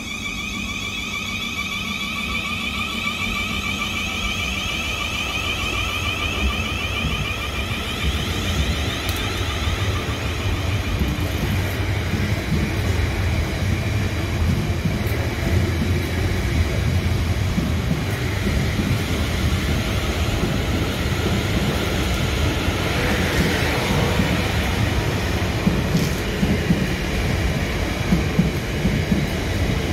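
South Western Railway Class 444 Desiro electric multiple unit pulling out of the station. Its traction motors give a whine that fades out after about ten seconds, while the rumble and clatter of the wheels on the rails grow steadily louder as the coaches move past close by.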